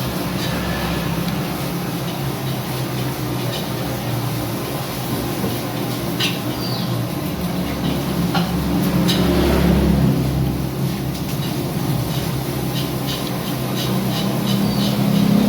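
Someone eating fried rice: scattered small clicks and a run of quick ticks near the end, over a steady low rumble.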